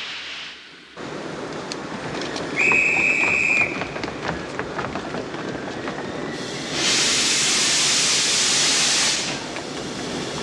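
Steam locomotive standing at a station, hissing steam. A high whistle holds one steady note for about a second early on, and a louder rush of escaping steam follows in the second half, lasting about two seconds.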